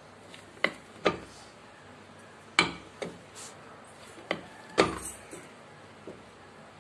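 Cast-iron hand-lever dough press clacking as its lid is closed, the lever pushed down on a dough ball and the press opened again: about seven sharp metal knocks, some with a short ring.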